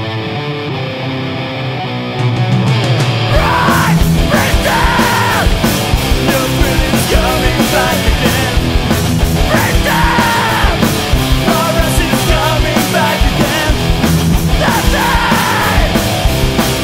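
Hardcore punk song: a guitar plays alone for about the first two seconds, then the full band comes in with fast drums, and yelled vocals start about three and a half seconds in.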